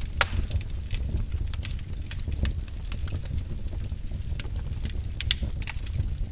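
Fire burning in a fireplace: irregular crackles and pops over a steady low rumble. The sharpest pops come just after the start and about five seconds in.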